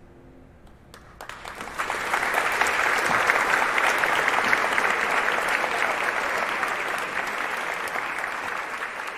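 A grand piano's final chord dying away, then audience applause breaking out about a second in, swelling quickly to full and carrying on steadily as the pianist takes her bow.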